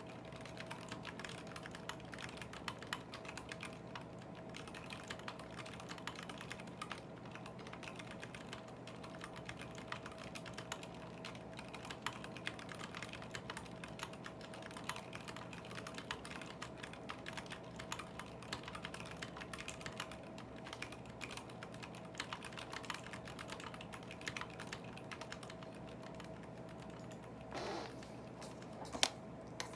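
Fast continuous typing on a KBD75v2 mechanical keyboard with Zealios v2 78g tactile switches, ePBT keycaps and a foam-dampened aluminium plate: a dense, irregular stream of keystroke clacks over a faint steady hum. Near the end there is a short louder stroke, then one sharp loud click.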